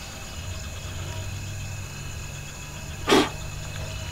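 Steady night insect chirring over a low hum, with one brief, loud noise about three seconds in.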